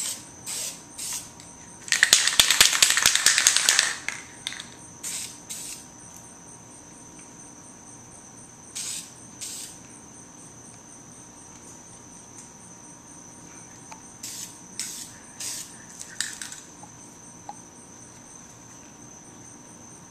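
Aerosol spray can of black paint sprayed over a stencil in quick hissing bursts. The longest and loudest burst lasts about two seconds, near the start, and short spurts come in clusters later. A faint steady high-pitched whine sounds underneath.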